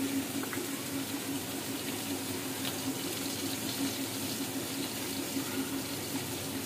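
Food sizzling steadily in hot oil in a frying pan.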